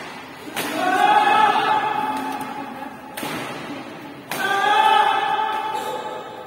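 A person's voice: two long, high-pitched shouts about four seconds apart, each starting suddenly and held for about two seconds before tailing off, with a sharp knock between them.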